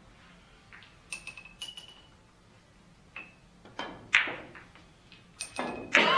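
Billiard balls clicking against each other and against the cue in a game of skittles billiards (keglebillard). It is a series of sharp clicks, some with a short ping. The loudest come about four seconds in and again near the end.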